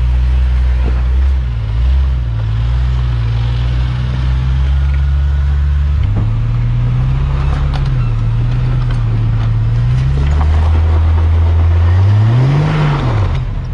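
Jeep engine running off-road, its pitch dipping and rising with the throttle, then a quick rev up and back down near the end.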